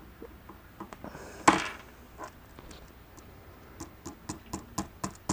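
Small clicks and taps from handling an iPhone 5c: one louder knock about a second and a half in, then a quick run of light clicks, about three or four a second, near the end.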